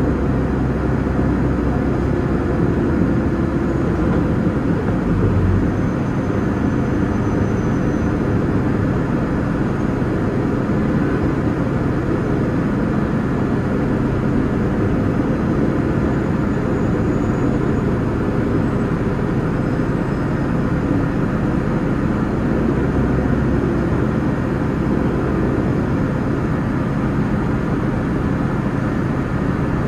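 City bus running along a street, heard from inside the cabin: a steady engine drone with rumbling road noise.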